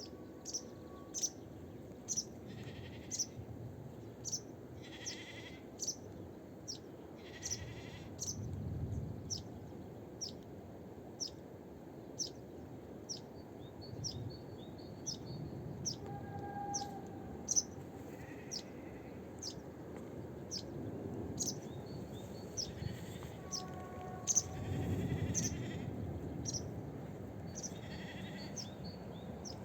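Outdoor animal sounds: a short, high chirp repeats about one and a half times a second throughout, mixed with occasional other animal calls at irregular times.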